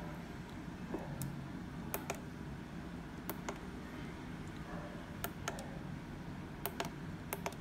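Buttons on a ZKTeco SC103 access control terminal's keypad being pressed, a series of short clicks, often in quick pairs, over a low steady hum.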